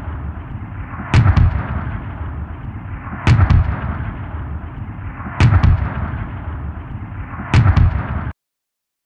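Intro sound effect of heavy gunshot-like booms, four of them about two seconds apart, each a sharp double crack with a low boom after it, over a steady rushing noise. All of it cuts off abruptly near the end.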